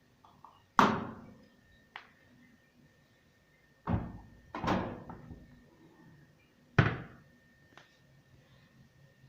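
A series of sharp thuds, four loud ones about a second, four, four and a half and seven seconds in, with a few fainter clicks between, over a faint steady high whine.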